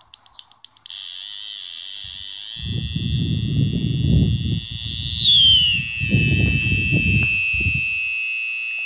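Shrill square-wave tone from a homemade 556 timer-chip synth in an alarm clock, pulsing about four times a second and then held steady. Midway it slides down in pitch and settles lower, as the pitch and pulse knobs are turned. A low rumbling noise sits under it for several seconds in the middle.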